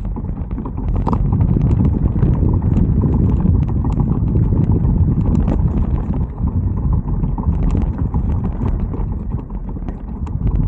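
E-bike front hub motor ticking while riding: irregular, sharp ticks over heavy wind rumble on the microphone. The owner hears this ticking when coasting with no throttle or power applied.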